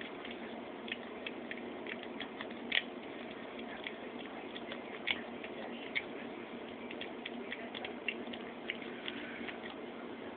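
A cat eating baby shrimp from a saucer: an irregular run of small, sharp chewing and licking clicks, several a second, over a steady background hiss, with a few louder clicks and the clicks dying away near the end.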